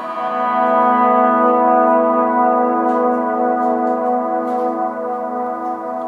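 Electric guitar playing an ambient volume swell through the Mr. Black Supermoon modulated reverb, with tape echo and light overdrive: a chord swells in over the first second and hangs with a long reverb tail, with a couple of soft picked notes later on.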